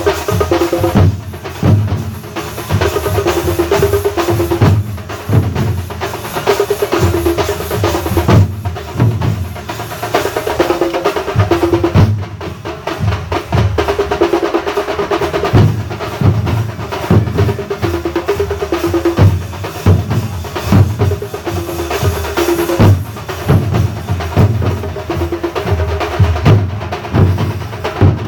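Thambolam drum ensemble playing a tune: loud, dense drumming with heavy bass-drum strokes in a steady rhythm and a repeating melody line above it.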